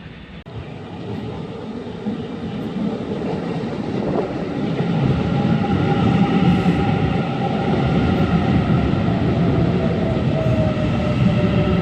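Train approaching along the track, growing louder over the first five seconds, then a steady rumble of wheels on rails with a whining motor tone that dips slightly in pitch near the end.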